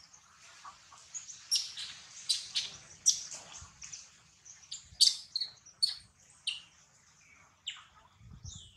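A series of short, high-pitched animal chirps, about a dozen, spaced irregularly, with a couple of longer gliding calls near the end.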